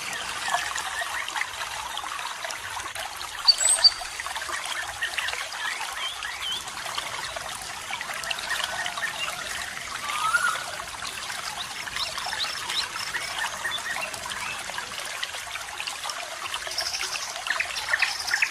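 Water trickling and babbling steadily, with a few short bird chirps over it, including a quick pair of high chirps about four seconds in.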